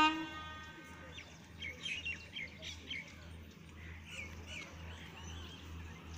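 Small birds chirping in short high twitters, with a train horn's note cutting off just at the start, over a faint low rumble.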